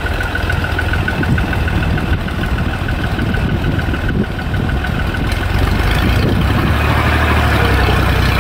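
Fiat 480 tractor's three-cylinder diesel engine running as it hauls a trolley loaded with soil slowly through soft, rain-soaked ground. The engine note becomes steadier and louder about six seconds in.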